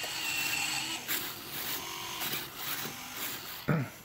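Small servos in an RC model B-24 Liberator whirring quietly in short, broken spurts as the ball turret pivots with the rudder.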